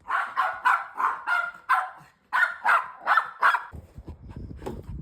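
Bichon Frise barking in a quick run of about eleven short, high barks with a brief pause partway through. The barking stops near the end and a low rumbling noise takes over.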